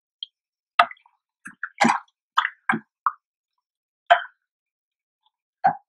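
A ladle stirring thick milk kheer in a saucepan: about nine irregular short knocks and plops as the spoon strikes the pan and moves the liquid.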